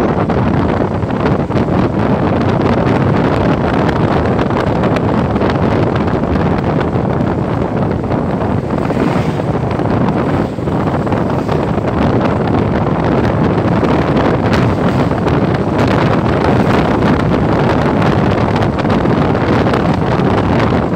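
Steady wind rushing over the microphone of a 2018 Yamaha NMAX 155 scooter cruising at about 50 km/h, with the scooter's engine and tyre noise running underneath.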